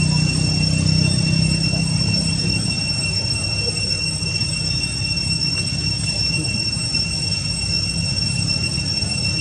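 Cicadas droning in one steady, unchanging high whine, over a low rumble that eases a couple of seconds in.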